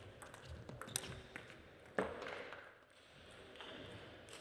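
Table tennis ball clicking off rackets and the table in a fast rally: several sharp ticks in the first two seconds, ending in a louder knock about two seconds in as the point finishes.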